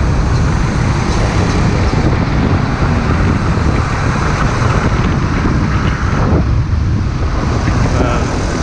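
Heavy diesel truck engine running, a steady low rumble, with wind buffeting the microphone.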